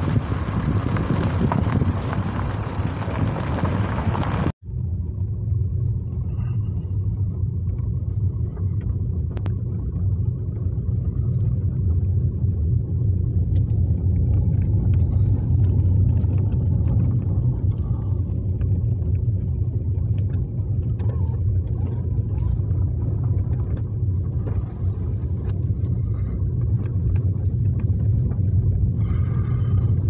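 Car driving along an unpaved road, a steady low rumble of engine and tyres. For the first four seconds or so wind buffets the microphone; it cuts off abruptly, and after that the rumble goes on with faint ticks and rattles.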